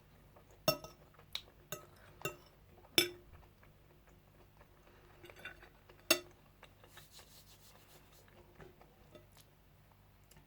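Cutlery clinking against a plate during a meal: a quick run of sharp, slightly ringing clinks in the first three seconds, the loudest about three seconds in, then one more about six seconds in.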